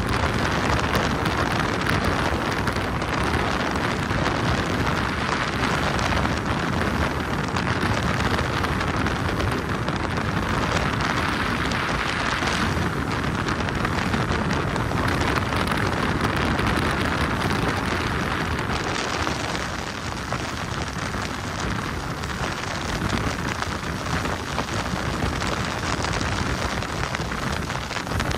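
Steady rush of wind buffeting the microphone and water noise from a motorboat moving at speed, a little quieter from about two-thirds of the way through.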